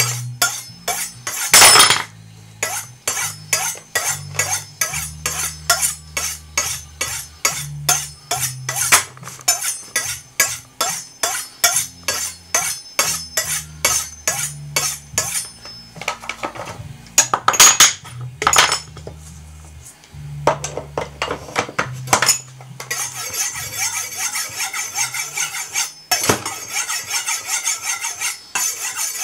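Knife blade stroked down the ceramic rods of a Spyderco TriAngle Sharpmaker, steel scraping on ceramic in a steady rhythm of two to three strokes a second. It pauses briefly twice, then goes faster and denser for the last few seconds.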